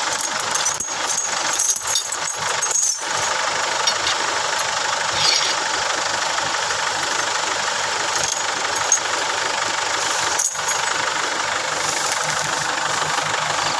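A vehicle engine idling steadily, with a few sharp metallic clinks from a tow chain being handled in the first three seconds and once more near the end.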